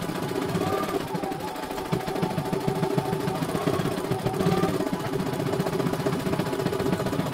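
CNY E900 computerized embroidery machine stitching at speed: a rapid, steady clatter of the needle, with a couple of brief rising and falling whines as the hoop moves.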